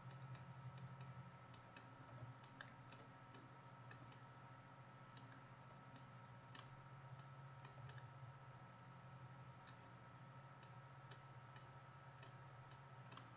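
Faint, irregular computer mouse clicks, one to a few a second, over a low steady hum.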